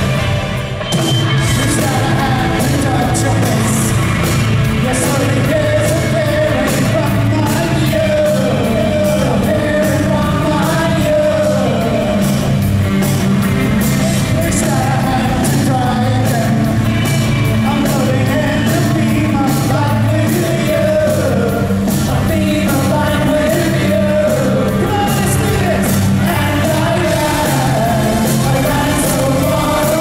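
Live new wave rock band playing with a singer over drums, bass and guitars, at a steady driving beat.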